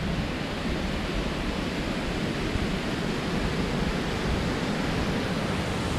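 Steady hiss with a low rumble: wind blowing across the action camera's microphone.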